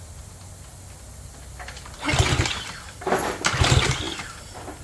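Recoil pull-starter of a Craftsman pressure washer's small gas engine being yanked a few times from about two seconds in, the engine cranking without catching.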